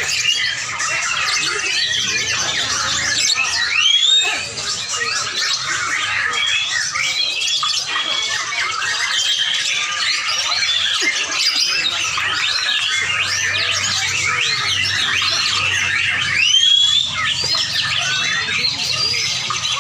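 Lovebirds chattering: a continuous stream of rapid high-pitched chirps and squeaks, with louder squawks about four seconds in and again near the end.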